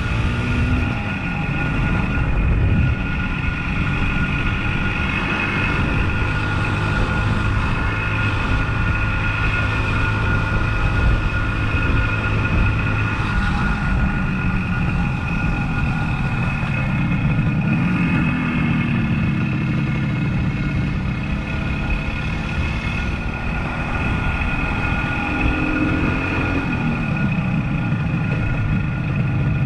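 1976 Suzuki GT185's two-stroke twin engine running while the motorcycle is ridden, its note rising and falling a few times with the throttle.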